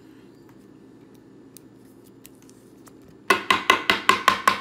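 Faint plastic handling for about three seconds, then a rapid run of about nine sharp knocks, some six a second: a rigid plastic top loader being banged to work a trading card down inside it.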